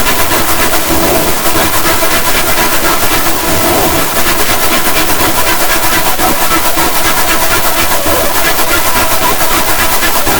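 Loud, heavily distorted, glitched sound effect: a dense, rasping noise with a fast, even stutter and no clear pitch.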